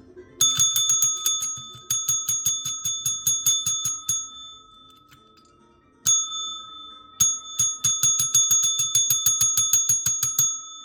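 Small metal bell rung in fast trills of about nine strikes a second, with a clear high ring. There are three long runs of ringing and a single ding about six seconds in.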